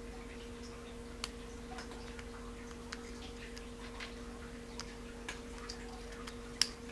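Small metal parts of a spinning fishing reel clicking and tapping as they are handled and fitted together, a dozen or so light clicks with one sharper click near the end. A steady low hum runs underneath.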